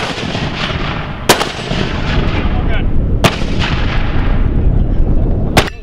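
Mortar tubes firing: four sharp reports, the first right at the start and the last near the end, over a steady low rumble.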